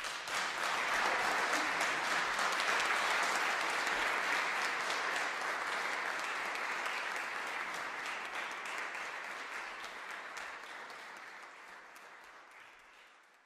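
Concert audience applauding at the end of a piece. The clapping breaks out all at once, holds steady, then gradually dies away near the end.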